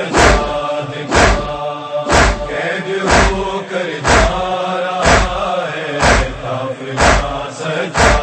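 Matam: a crowd of mourners striking their chests in unison, a loud slap about once a second, with many men's voices chanting a nauha refrain between the strokes.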